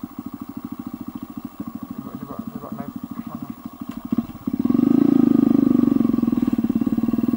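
Motorcycle engine running with a rapid, even pulsing. It gets markedly louder about halfway through.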